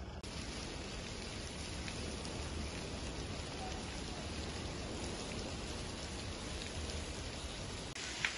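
Fire hose spraying a jet of water into burning woodland: a steady hiss of spray, with a few faint crackles.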